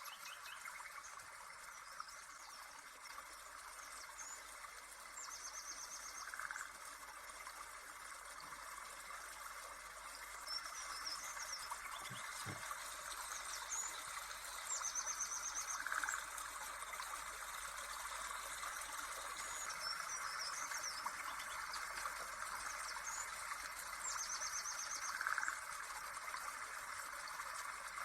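Nature ambience of birds chirping over a steady chorus of insects, with the same short trilled calls coming back about every nine to ten seconds as if looped.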